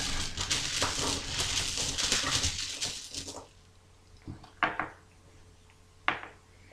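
A handful of five game dice rattling as they are gathered and shaken in the hand for a few seconds, then rolled onto the table, landing with a few sharp clacks about four and a half and six seconds in.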